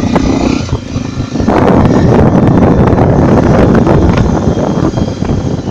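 Honda XR 250 Tornado's single-cylinder four-stroke engine running while the motorcycle rides along a dirt road, with heavy wind buffeting on the microphone. The wind rumble gets louder about a second and a half in and is the loudest sound.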